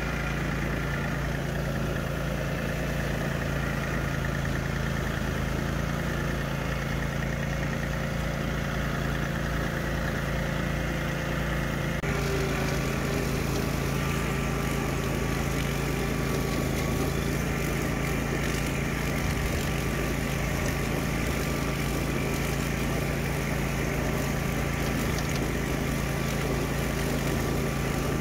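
A subcompact tractor's Yanmar diesel and the towed Swisher Brush King rough-cut mower's gasoline engine running steadily together under load while mowing tall grass. The sound shifts slightly about twelve seconds in.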